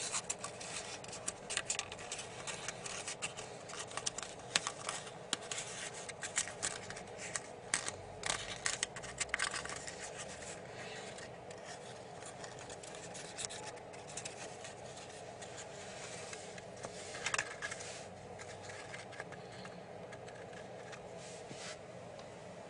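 Origami paper being creased and pinched between fingers: dense crinkling and sharp crackles for the first ten seconds or so, then fewer and softer, with a short burst a little past the middle. A steady hiss runs underneath.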